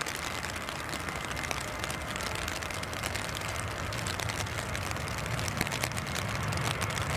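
Boeing 737 jet engines running as the airliner rolls down a wet runway: a steady hiss with a faint whine, and a low rumble that grows louder toward the end.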